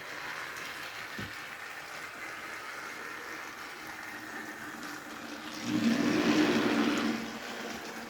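Motorised TrackMaster Nia toy engine whirring steadily as it runs along plastic track pulling a truck, growing much louder for about a second and a half near the end.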